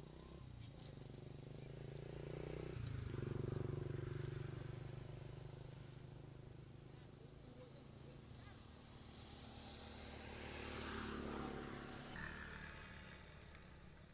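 Faint outdoor background with the low hum of a distant motor vehicle, which swells and fades twice. A small click comes near the end.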